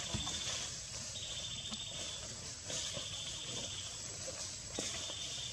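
Insect calling in pulsing trills about a second long, repeated every second and a half or so, over a steady high hiss of ambient insect noise, with a few faint taps.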